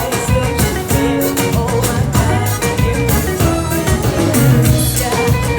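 Background music with a steady beat, guitar and bass.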